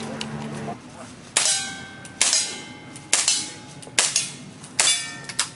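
A string of five handgun shots fired a little under a second apart during a timed practical shooting stage, then a fainter sharp crack just after. Several shots have a short ring after them.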